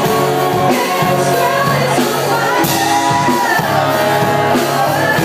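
Live rock band playing: sung vocals into microphones over drums, bass and electric guitar, loud and steady.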